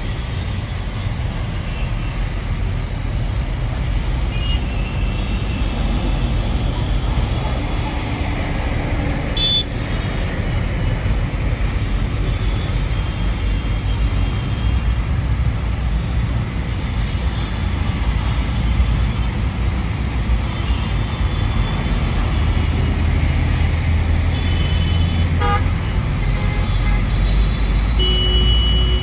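Steady low rumble of a bus engine and road noise heard from inside the bus as it creeps through dense traffic, with vehicle horns tooting several times, one near the end.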